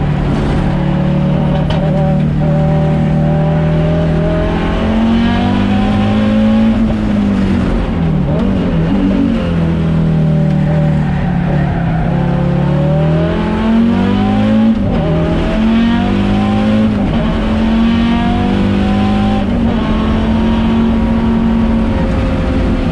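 Audi Sport quattro S1 Group B rally car's turbocharged five-cylinder engine at racing speed, its note rising and falling again and again as the car accelerates and lifts.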